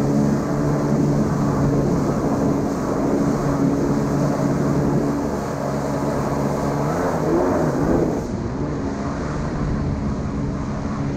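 1989 Kawasaki 650 SX stand-up jet ski's two-stroke twin engine running steadily under way; about seven seconds in its pitch swings and the note turns rougher.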